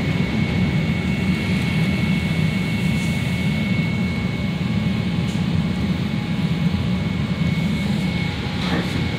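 Interior rumble of a CTA 5000-series Bombardier rapid-transit car slowing into a station, with a steady high whine from the drive that fades out near the end. A short knock comes just before the end.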